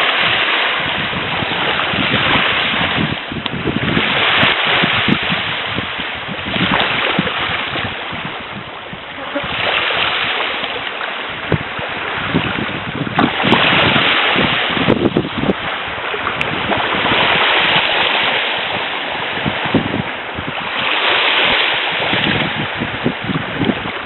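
Waves of the Sea of Azov washing onto the shore, one wash every three to four seconds, with wind buffeting the microphone.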